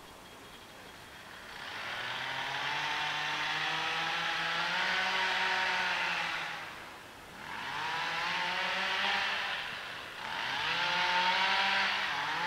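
A motor vehicle's engine accelerating through the gears: its pitch climbs steadily, dips briefly about seven and ten seconds in at the shifts, and climbs again each time.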